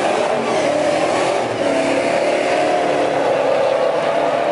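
Two drag-racing pickup trucks' engines at full throttle, loud and unbroken, as the trucks accelerate side by side down the drag strip.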